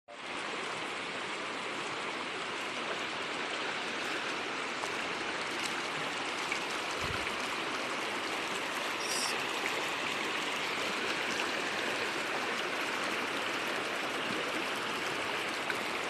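Shallow river flowing over gravel and around rocks, a steady rushing of water.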